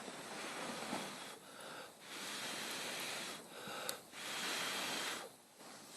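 Breath close to the microphone: long blows of about a second each alternating with shorter in-breaths, a breathy hiss with no voice in it.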